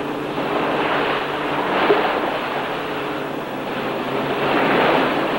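Surf washing against shore rocks, swelling and easing about twice, with a low steady drone underneath.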